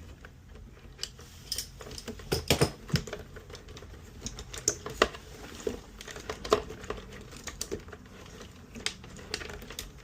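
Irregular small clicks and knocks of hands working a hose back onto the water pump fitting inside an espresso machine, with a low steady hum underneath.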